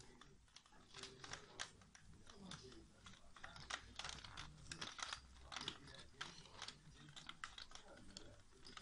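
Faint, irregular small clicks and taps, a few per second.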